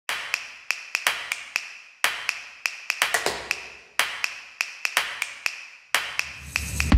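Percussive background music made of sharp taps, snaps and clicks, with a strong hit about once a second and quicker clicks in between. A low swell builds near the end.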